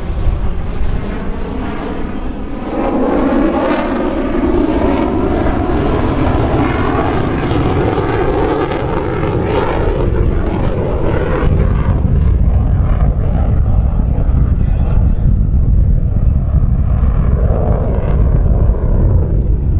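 Warbird and jet formation flying over: the F4U Corsairs' Pratt & Whitney R-2800 radial engines and propellers drone with evenly spaced overtones that slowly shift in pitch, joined after about three seconds by the F/A-18F Super Hornet's louder jet rush. In the second half a deep jet rumble takes over.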